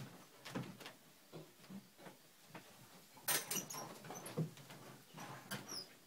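A dog rubbing its itchy rump against a wooden bed frame: irregular scuffs and short knocks, with the loudest cluster a little past halfway.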